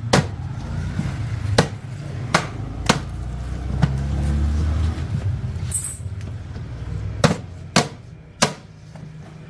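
Sharp knocks from a tool striking a hard object, about seven at irregular intervals, over a low steady hum.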